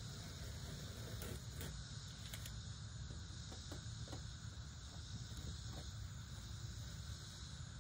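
Steady insect chorus with a low rumble underneath and a few faint clicks.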